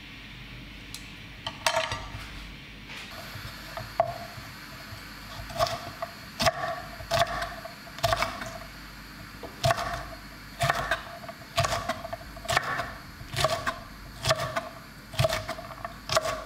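A kitchen utensil knocking repeatedly against a bowl or pan, each knock with a short ringing tone, at an irregular pace of roughly one a second.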